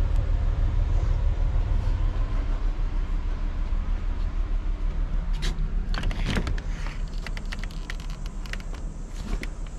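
Heavy low rumble of the microphone being carried. About six seconds in, a latch click and rattle as the caravan door is opened, then scattered light clicks.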